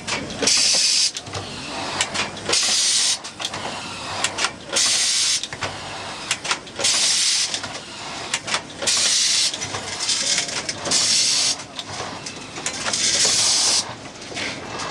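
Automatic screw-fastening machine cycling: repeated short hissing bursts, about one every second or so, with sharp clicks between them.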